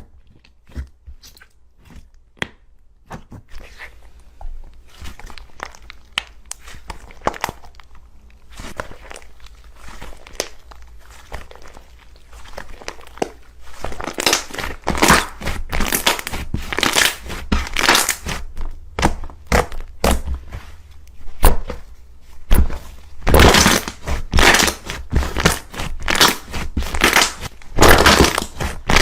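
Slime being handled up close: sharp separate clicks and pops at first, then from about halfway on a denser, louder run of crackling and squishing, with the strongest bursts near the end.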